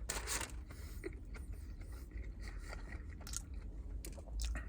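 Someone chewing a mouthful of Polish dog with sauerkraut, with small wet mouth clicks throughout. A short rustle comes at the start, from handling the food or its wrapper.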